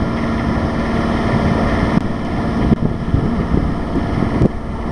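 Sailboat's auxiliary engine running steadily under way.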